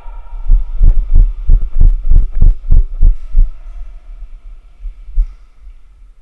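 A quick run of about ten heavy, low thumps, roughly three a second, over about three seconds, followed by a single fainter thump.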